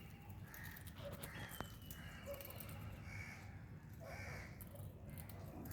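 Faint short calls of birds, repeated several times, with one faint click about a second and a half in.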